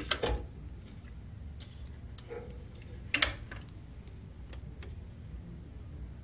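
Lid of a benchtop X-ray metal analyzer being closed and the machine being operated: a sharp cluster of clicks at the start, another loud click about three seconds in, and scattered light ticks between and after.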